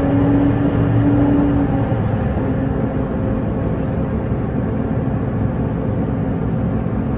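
Steady drone of a tractor engine pulling a grain cart, heard from inside the cab, with a steady hum that weakens about two seconds in.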